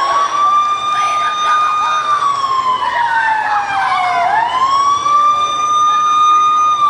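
Siren wailing: the pitch holds high for about two seconds, slides slowly down, then sweeps quickly back up about four seconds in and holds high again.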